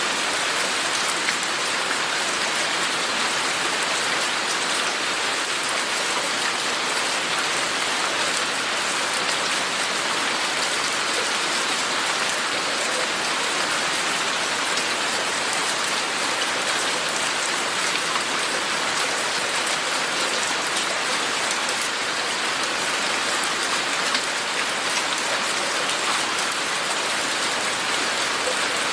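Steady rain falling, an even hiss made of many small drops, with no break or change in strength.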